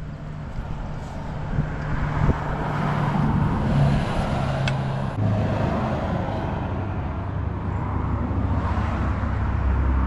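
A motor vehicle engine running with road traffic noise: a steady low hum that drops in pitch about five seconds in and grows slightly louder toward the end.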